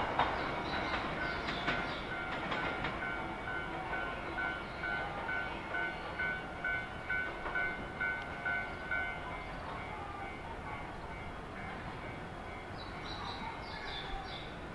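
Shinano Railway 115-series electric train pulling away over the station pointwork, its wheels clacking sharply over rail joints in the first few seconds, then a low rumble as it recedes. A beep pulses about twice a second for several seconds over it.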